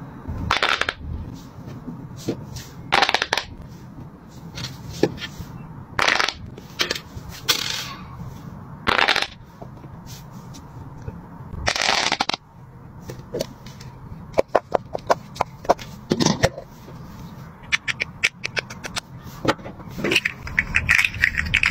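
Fingers popping the bubbles of silicone pop-it fidget toys: scattered, irregular pops. Near the end come quick runs of clicks as the jointed plastic fidget slug is flexed.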